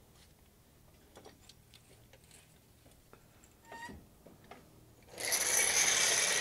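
A few faint clicks as a hydraulic floor jack's handle is twisted, then, about five seconds in, a sudden loud steady hissing rush as the jack's release valve opens and the jack lets the truck down.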